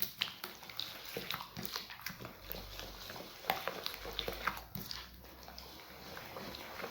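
Eggs and granulated sugar being worked by hand in a bowl: irregular wet squelching and slapping as the hand beats them until the sugar dissolves and the eggs turn foamy.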